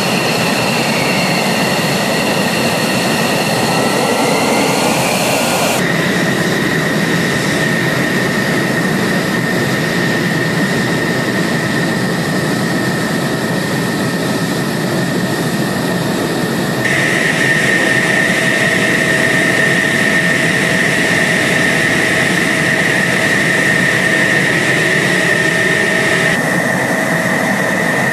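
F-16 fighter jet engines running on the ground: a steady jet roar with a high whine. The whine changes pitch abruptly about six seconds in and the noise gets a little louder around two-thirds of the way through.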